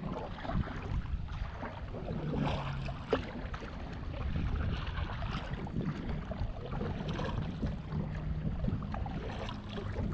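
Canoe paddles dipping and pulling through choppy water, with water slapping the hull, a splashy stroke every couple of seconds. Wind buffets the microphone underneath.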